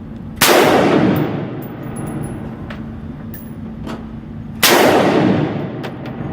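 Two single shots from an AR-15 rifle, fired about four seconds apart, each cracking loudly and then fading away in a long echo.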